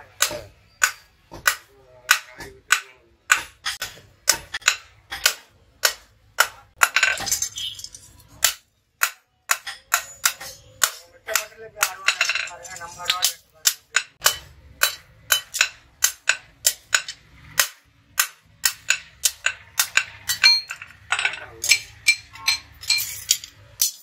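Hand hammer forging a red-hot billhook blank held in tongs on an anvil block: a steady run of sharp metallic blows, about two a second.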